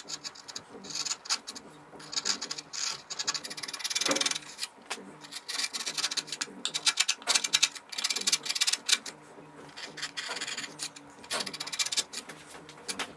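A 20 mm #3 carving gouge paring wood by hand in many short scraping cuts, rounding off hard edges on a carved face.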